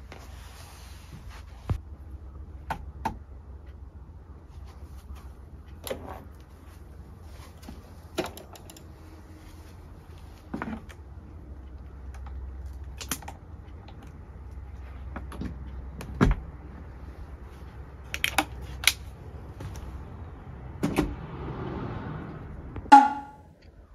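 Scattered clicks and knocks of objects being handled and set down inside a small wooden camper cabin, over a low steady hum, with a louder ringing knock near the end.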